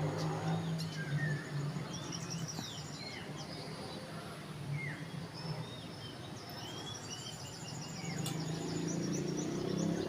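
Birds chirping outdoors in short rising and falling notes, with a fast high trill now and then. A low steady hum runs underneath and grows louder near the end.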